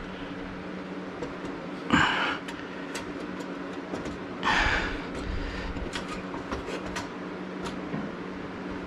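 A man's heavy breaths and straining exhales while he works a small engine into a mini ATV frame, with a sharp knock about two seconds in and a few light clicks, over a steady low hum.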